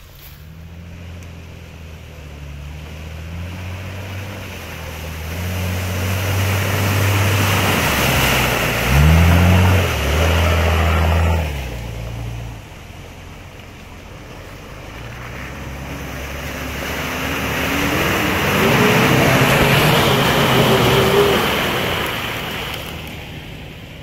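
An off-road 4x4's engine revving hard under load, its pitch climbing sharply about nine seconds in before dropping away, with a loud rushing, splashing noise of tyres churning through mud and water that swells twice.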